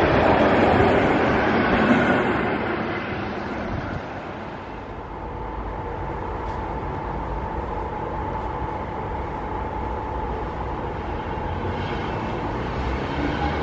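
A ČD class 460 electric multiple unit rolls past loudly, then after a sudden drop in level a second class 460 unit approaches slowly, running as a steady quieter rumble with a faint steady whine. Near the end a low tone rises as it draws closer.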